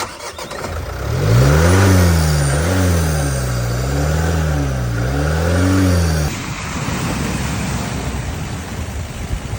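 Car engine revved up and down over and over, rising and falling about once a second for some five seconds. It then drops to a rougher, steadier running sound.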